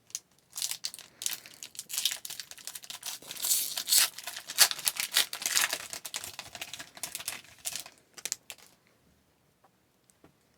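A 2020-21 Upper Deck Series 2 hockey card pack's foil wrapper being torn open and crinkled, a run of crackling rustles that dies away about two seconds before the end.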